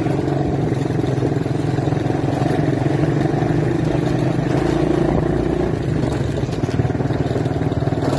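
Quad bike engine running steadily under way, its pitch rising a little about halfway through and dropping back.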